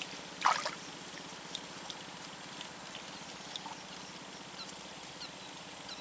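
Quiet outdoor ambience by the water: a steady faint hiss with a thin, steady high-pitched tone, a few faint short chirps, and one brief louder sound about half a second in.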